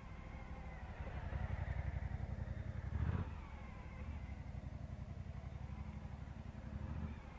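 Motorcycle engine running at low revs while the bike is ridden slowly through tight turns, with a short burst of throttle about three seconds in.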